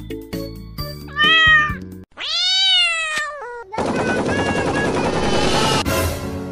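Plucky background music, then a cat meowing twice, the second a long drawn-out meow, followed by a burst of machine-gun fire lasting about two seconds.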